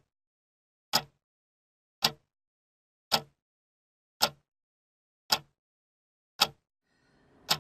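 A watch ticking: seven sharp single ticks a little over a second apart, with silence between them, as it counts down. Near the end a low hiss of background noise fades in beneath the ticks.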